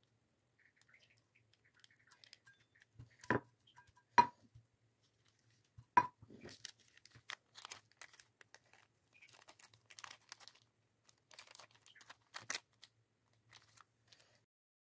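Thin plastic sheet crinkling as a raw chicken kabab patty wrapped in it is pressed and handled. Three sharp, ringing knocks, about three, four and six seconds in, come from a small steel cup set down and pressed on the wooden chopping board.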